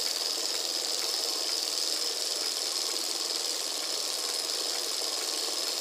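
Small model Stirling engines running together, the alcohol-burner engine among them, giving a continuous mechanical whir with a steady high-pitched tone.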